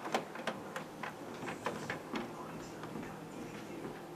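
Canon inkjet printer starting a print job: a run of soft, irregular clicks and ticks from its mechanism, with a faint low hum coming in about halfway through.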